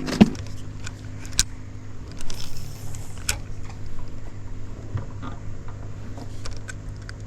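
Scattered sharp knocks and clicks of handling in a jon boat over a steady low hum.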